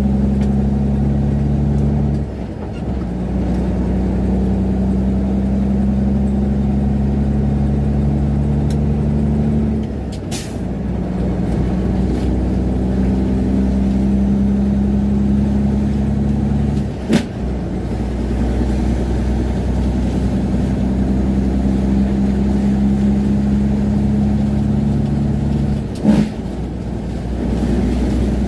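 Semi-truck diesel engine running steadily under load. Its note drops out briefly about every eight seconds with a short sharp click or hiss, typical of gear changes, then picks up again.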